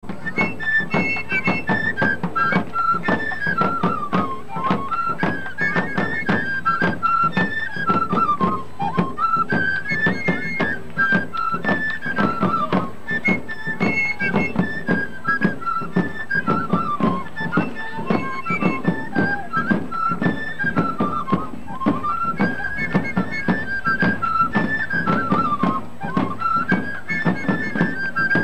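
Parade band of vertical flutes playing a short traditional Andean melody that climbs and falls, repeated over and over, over a steady percussion beat.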